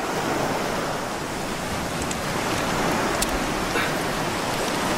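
Surf washing on the shore, a steady rush of sea noise, with a few faint clicks.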